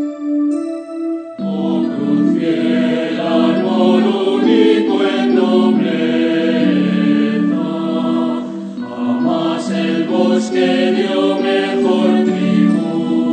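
A held keyboard chord, then about a second and a half in a choir comes in singing a Spanish hymn refrain over keyboard accompaniment.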